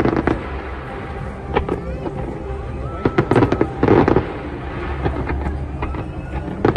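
Fireworks going off in an irregular series of bangs and crackles, heaviest around four seconds in.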